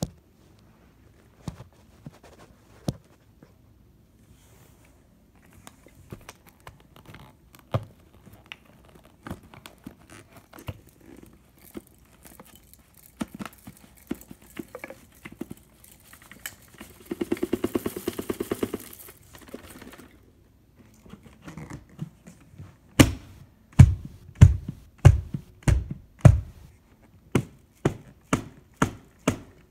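Knocks and clicks from a vacuum cleaner being handled and moved on carpet, with no motor running. A short rattling buzz comes a little past halfway, and near the end there is a quick run of heavy thumps, about two a second.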